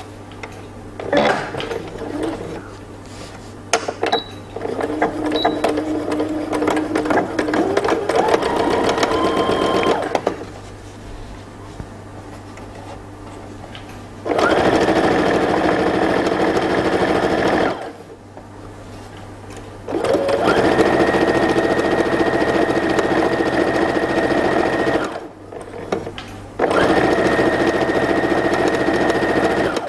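Computerised sewing machine stitching a folded fabric strip in four runs of a few seconds each, stopping and starting between them; the first run steps up in speed. A few clicks from handling the fabric and the machine come before the first run.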